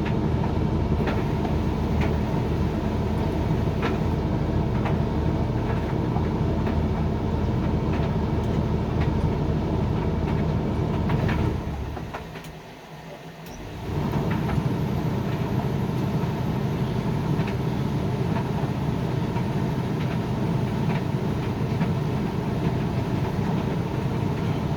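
Hoover XXL Extra Dry tumble dryer drying: motor hum and rotating drum with irregular light clicks of the load tumbling. About twelve seconds in the motor winds down and the drum stops for a second or two, then it starts up again and runs on steadily.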